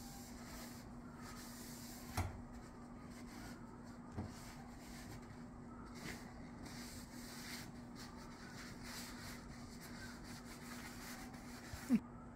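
Cloth rag rubbing oil finish into a wooden axe handle: faint scratchy wiping strokes with a couple of light knocks, over a steady low hum. A short squeak near the end is the loudest sound.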